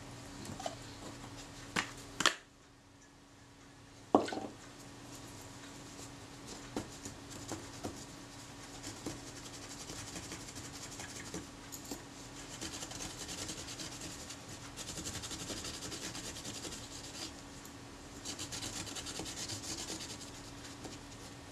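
Cotton swab scrubbing the metal mechanism plate of a Rolleicord shutter: fine, rapid scratching in long stretches through the second half. A few small clicks and knocks of the parts being handled come in the first few seconds.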